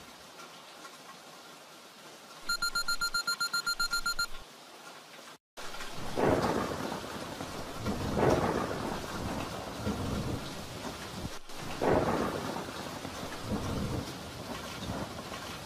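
Steady heavy rain, broken a couple of seconds in by a fast electronic beeping that lasts about two seconds. After a brief dropout, thunder cracks and rolls several times over the rain, loudest about six, eight and twelve seconds in.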